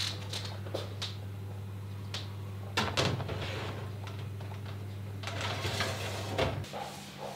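Metal baking tray being slid into an open wall oven, clanking and scraping against the oven rack, with the loudest knock about three seconds in. A steady low hum runs underneath and stops near the end.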